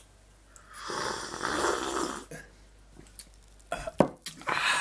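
A person taking a long, noisy slurping sip of fizzy cola from a glass mug, followed by a few clicks and a knock as the glass is set back down on the table, and a short breathy sound near the end.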